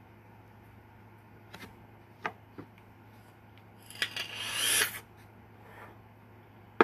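A person smoking: a long hissing drag of about a second, rising as it goes, then a soft exhale of smoke. A few faint clicks come before the drag, a sharp click near the end, and a steady low hum runs underneath.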